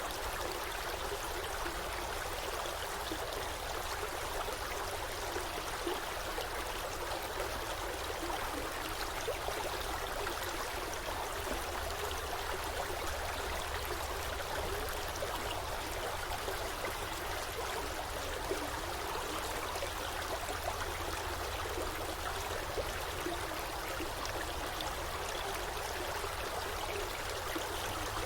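Forest stream flowing over rocks: steady rushing and babbling water.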